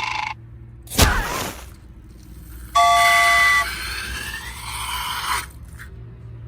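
Cartoon-style sound effects: a sudden swoosh about a second in, then a short horn-like toot, followed by a noisy swell that fades near the end.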